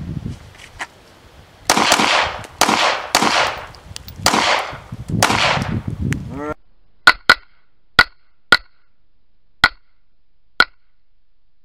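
Semi-automatic pistol fired in a quick string of shots, each with a long echoing tail. About six and a half seconds in the sound changes to six short, dry cracks with no echo, spaced unevenly over about three and a half seconds, as picked up by a head-mounted action camera.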